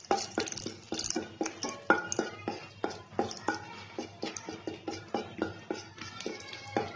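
Background music with a steady beat of light clicks, over a wooden spatula stirring and tapping against a steel kadai as whole spices fry in oil.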